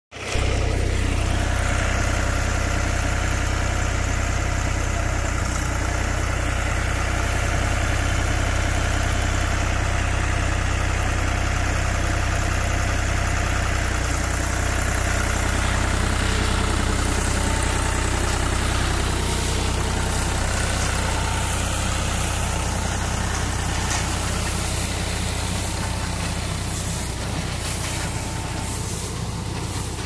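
A John Deere tractor's diesel engine runs steadily, pulling and powering a mini round baler as it picks up loose straw. The sound grows a little quieter near the end.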